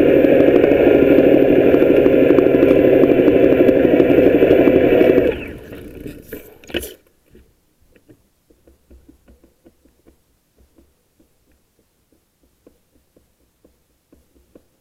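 Bafang BBS02 mid-drive e-bike motor driving the drivetrain with a steady whine, cutting out about five seconds in. A single clunk follows near seven seconds, then faint, irregular clicks as the wheel coasts down through the freewheel hub, where the owner traces a knocking.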